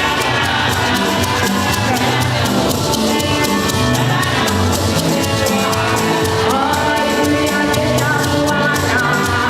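Music with singing over a steady, even beat.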